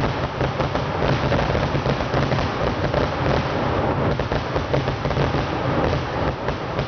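Kerala temple-festival fireworks barrage: a dense, unbroken stream of rapid firecracker bangs that run together into continuous crackling and rumble.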